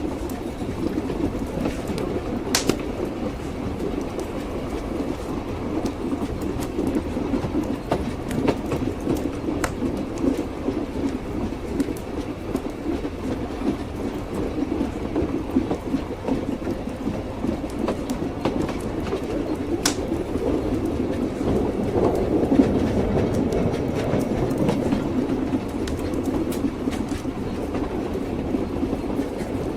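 Train running on rails: a steady rumble from the wheels with a few sharp clicks.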